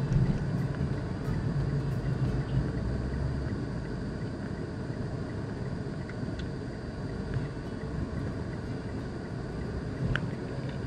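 Car interior noise picked up by a windshield dashcam: a steady low rumble of engine and tyres as the car drives slowly in traffic. A few faint clicks come near the end.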